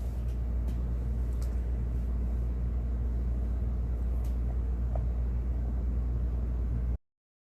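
Steady low hum of background room noise, with a few faint clicks; it cuts off abruptly near the end.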